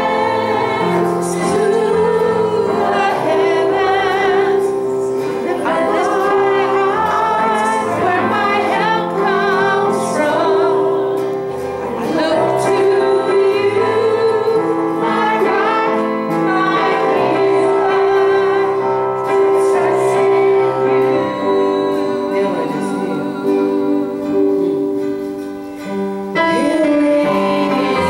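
Woman singing a gospel song into a microphone, with wavering held notes, over guitar and piano accompaniment.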